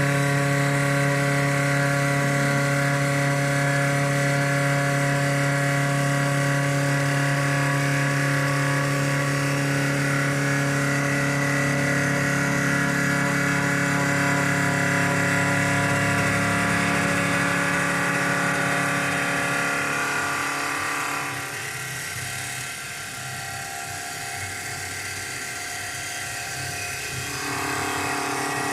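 Small CNC wood lathe running, a steady machine whine made of several fixed tones over hiss. About two-thirds of the way through it drops noticeably quieter and changes tone, then picks up again near the end.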